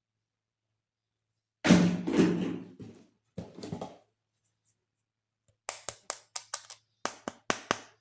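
Plastic toys and packaging being handled: a thunk with rustling, a shorter scrape, then a run of sharp plastic clicks, about three or four a second, starting near the end.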